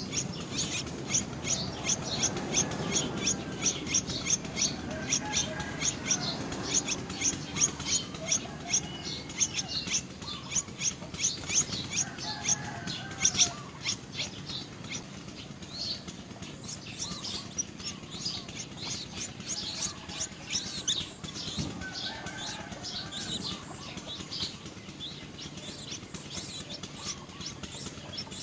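Small birds chirping, a dense run of short high chirps several a second, with softer, lower warbling calls from other birds now and then. The chirping thins out a little after the middle.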